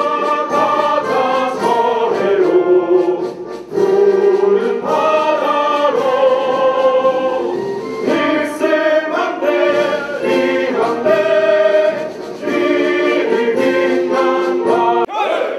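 A small group of men singing together into microphones, several voices in sung phrases with short breaks between them.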